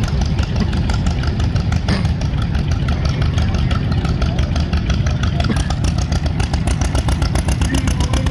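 Antique farm tractor engine running close by with a rapid, even firing beat.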